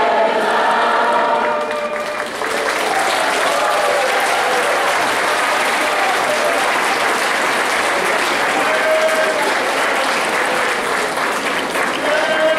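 A large indoor crowd applauding, dense and steady, with a few voices calling out over the clapping. Singing breaks off about two seconds in as the applause takes over.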